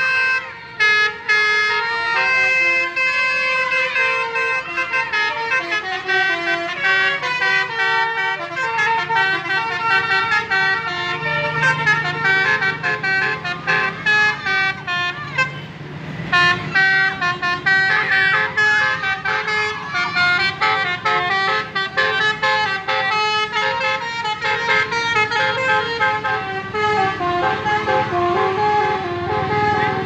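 Telolet horns on tour buses: multi-tone air horns playing quick melodic tunes, the pitch stepping from note to note in rapid succession.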